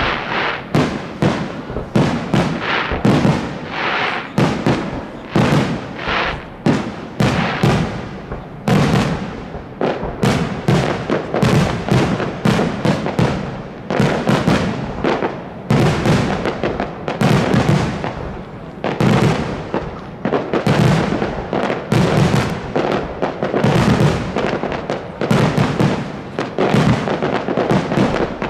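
Aerial fireworks shells bursting in a dense, rapid barrage: sharp bangs several times a second, overlapping with rumbling echoes.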